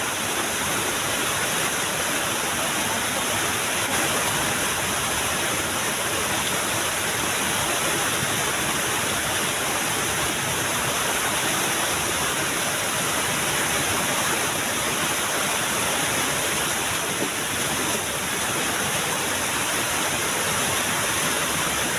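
Small waterfall rushing steadily, its water noise loud and even throughout.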